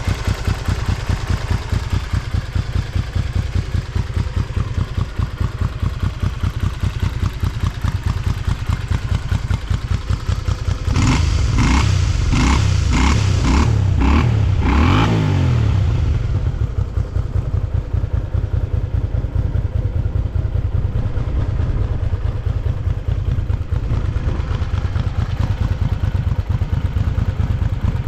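Honda Magna 250's liquid-cooled V-twin engine idling with an even pulse. About eleven seconds in it is blipped several times in quick succession, then settles back to idle. It revs freely with no abnormal noise.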